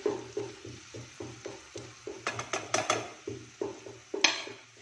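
Metal spoon stirring mushrooms and onions in a non-stick wok: a quick run of knocks and scrapes, about three a second, with a few sharper clicks around the middle and a short hiss near the end.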